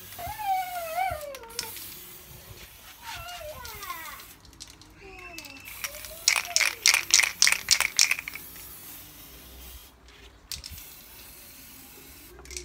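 An aerosol spray can being shaken, its mixing ball rattling in about a dozen quick strokes over some two seconds midway through. Earlier, a young child's voice whines wordlessly, rising and falling in pitch.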